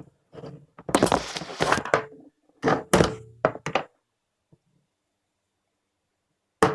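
Knocks and clicks of a phone charger plug and micro USB adapter being handled, with a scraping rustle about a second in. Then a pause, and one sharp click near the end.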